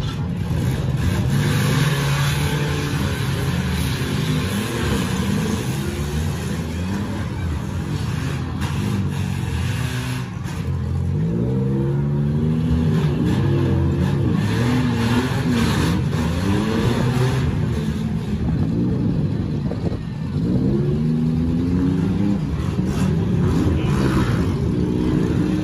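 Several demolition derby cars' engines revving up and down at once as the cars back up and ram each other. Now and then a short crash of metal on metal cuts in.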